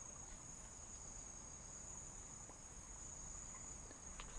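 Faint, steady chorus of night insects: a continuous high-pitched chirring, like crickets.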